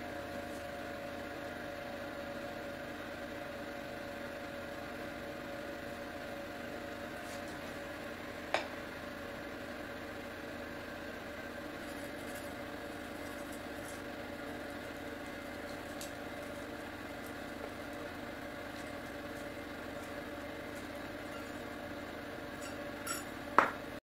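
A steady machine-like hum with a sharp click about eight seconds in and a louder click near the end.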